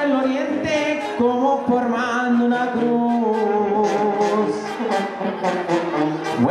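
Mexican banda (brass band) playing: brass holding long notes that move from pitch to pitch, over steady drum beats.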